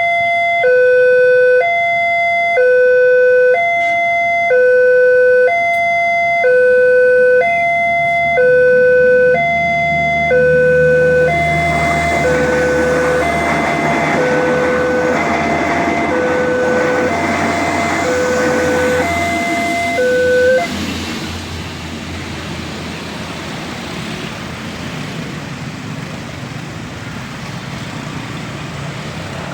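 Railway level-crossing warning bell sounding an electronic two-tone alternation, switching pitch about once a second, while a train passes with rising rumble and wheel noise from about 11 s in. The bell cuts off suddenly about 20 seconds in, leaving a steadier rushing noise.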